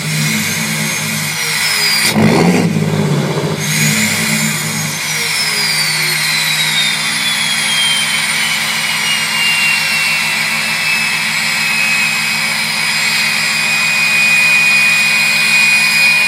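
6.7 Cummins inline-six turbodiesel idling with a loud turbo whistle, blipped once about two seconds in. The whistle climbs high after the rev, then slowly falls back to a steady idle whistle as the turbo spools down.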